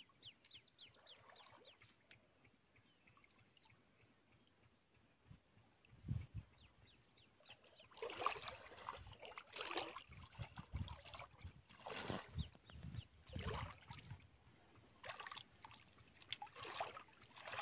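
Shallow river water sloshing and splashing as a person wades and reaches into it by hand, a series of short splashes from about halfway through, after a few quiet seconds.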